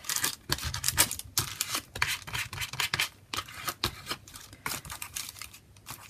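Hands rustling and handling paper cut-outs on a glued collage page: a run of irregular small crackles, taps and scratches.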